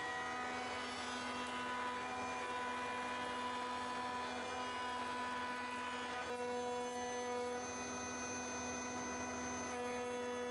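Router in a router table running steadily with a roundover bit, rounding over the edges of a black walnut table leg: an even motor whine with a hiss of cutting over it. The hiss thins about six seconds in while the motor whine carries on.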